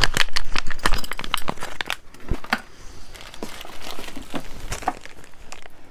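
Packaging crinkling as items are handled, dense crackles for about the first two seconds, then softer and sparser rustling.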